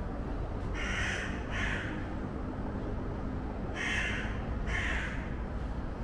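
A crow cawing: four harsh caws in two pairs, the pairs about three seconds apart, over a steady low background rumble.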